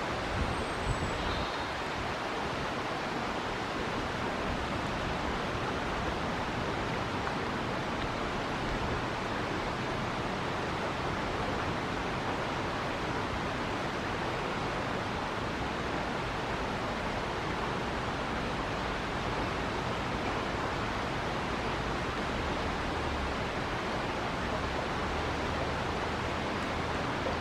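River water rushing in a steady, even wash, with one brief, faint high chirp near the start.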